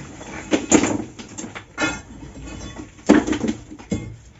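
Iron crowbar striking and prying at a dry-stone wall, stones knocking against each other as the wall is broken down: about four heavy knocks roughly a second apart, with rattling between them.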